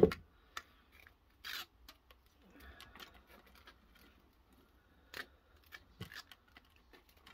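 Small metal parts being handled: a loud knock right at the start, then scattered sharp clicks and light scraping as a thin metal tube with a steel spring on its end is twisted in the fingers.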